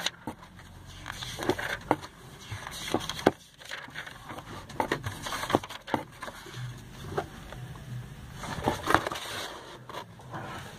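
Pages of a glossy paper catalog being turned by hand: a run of short paper rustles and flicks, irregularly spaced.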